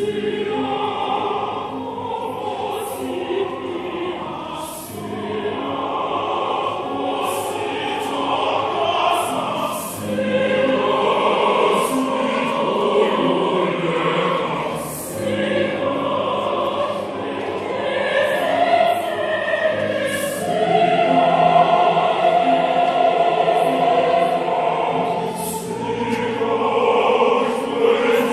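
A choir singing a song in several voice parts together.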